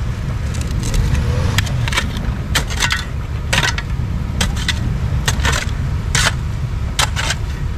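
4x4 SUV creeping along a snowy dirt trail: a steady low rumble with about a dozen irregular sharp clicks and crunches scattered through it.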